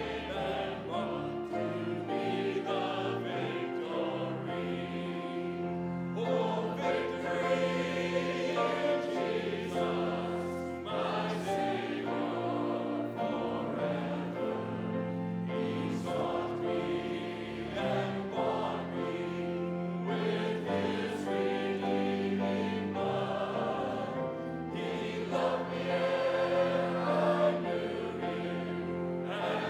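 Choir singing a hymn with instrumental accompaniment, sustained chords changing every second or two.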